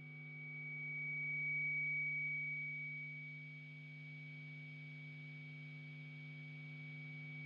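A faint, steady hum built from fixed tones: a low hum under a thin, high whine. The whine swells over the first two seconds, then sinks back, and the hum holds level.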